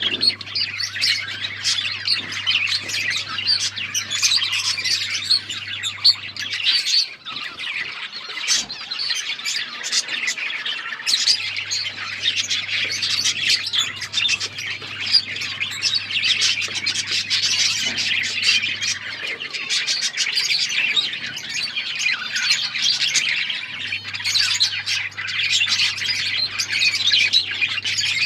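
A flock of budgerigars chattering and chirping continuously, many calls overlapping.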